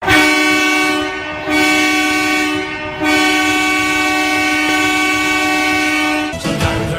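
Hockey goal horn for the Carleton Place Canadians sounding three loud, steady blasts, the last one long. Music starts near the end as the horn cuts off.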